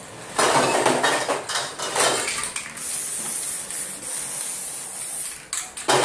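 Aerosol spray-paint can shaken, its mixing ball rattling for about two seconds, then a steady spray hiss for a few seconds as yellow paint goes on, ending with a few short clicks.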